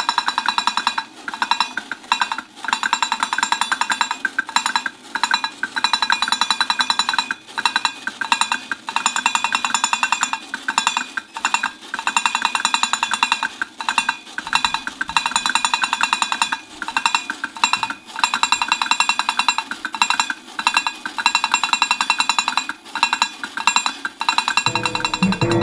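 Battery-operated Bongo Monkey toy drumming its hands rapidly on its tin bongo drums, a fast metallic tapping that comes in bursts broken by brief pauses every second or two.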